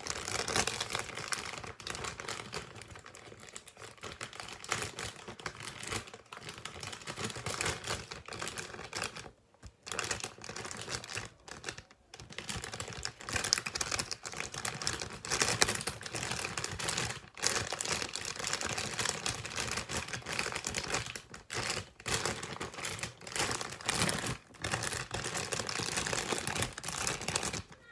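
Plastic squishy packaging crinkling and crackling under close handling, a dense run of small irregular crackles, as the bag is squeezed around an oversized squishy and pressed shut. The crackling stops briefly about ten seconds in and again around twelve seconds.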